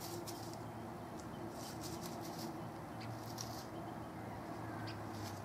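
Yellow-shafted flickers foraging in dry leaf litter: short, scratchy rustles come and go every half second or so. A steady low hum runs underneath.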